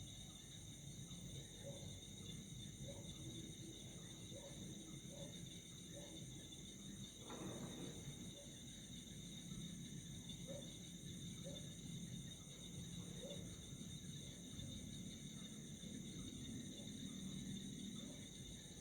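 Faint night chorus of crickets: a steady high-pitched trilling at several pitches. Short low chirps come every second or so, and a brief burst of noise sounds about seven seconds in.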